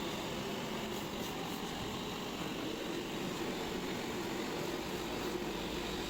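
Steady droning noise, even in level throughout, with a faint low hum running under it.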